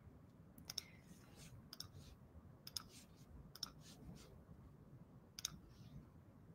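Faint clicks at a computer, every second or so and many in close pairs, over near-silent room tone.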